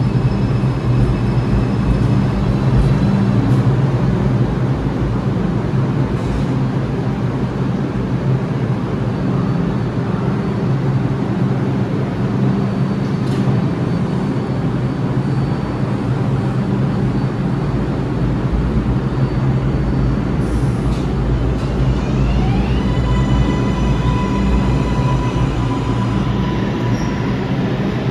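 New York City Subway R142A train standing in the station with a steady low hum, then pulling out about three quarters of the way through: the electric traction motors' whine rises in pitch as it accelerates away.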